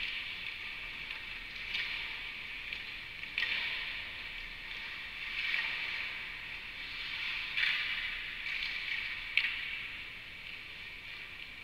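Ice skate blades scraping and hissing on rink ice, swelling every couple of seconds, with a few sharp clacks rising above it.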